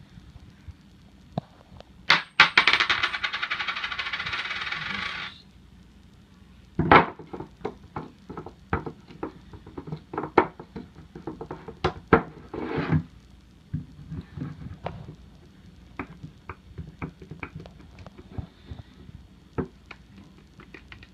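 Hands working a homemade wooden puzzle box: a loud, dense rattling jingle lasting about three seconds, starting about two seconds in, then many scattered sharp clicks and knocks as the wooden parts are slid and set back in place.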